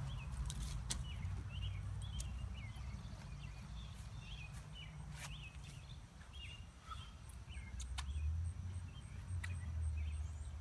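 A small bird chirping repeatedly, a short call about every half second for the first seven seconds or so, over a steady low rumble. Scattered sharp clicks of stones shifting under a dog's paws on gravel.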